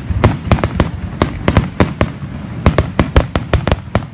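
Fireworks going off in a rapid, irregular volley of sharp bangs, about four a second, over a continuous low rumble.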